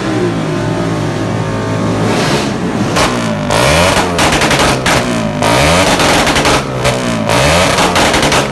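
A motorcycle engine running, then revved in repeated quick blips from about three seconds in, its pitch shooting up and dropping back roughly once a second.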